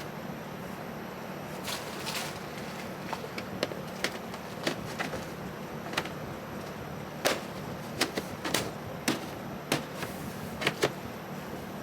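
Plastic heat pump line-set cover being pressed and snapped onto its trim track: scattered sharp clicks and knocks, several in quick succession in the second half, over a steady low hum.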